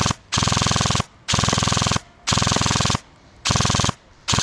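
Airsoft gun firing on full auto in short bursts, each under a second, with brief pauses between them. A longer burst ends just after the start, followed by four short bursts, and another begins at the very end.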